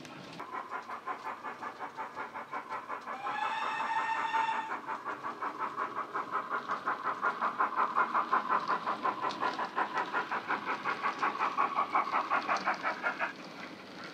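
Jamie Goodman DCC sound decoder in a Bachmann 9F model steam locomotive, played through its small bass-enhanced speaker: a steady rhythm of exhaust chuffs, about four a second. A whistle of about a second and a half sounds a few seconds in. The chuffs grow louder and then stop about a second before the end.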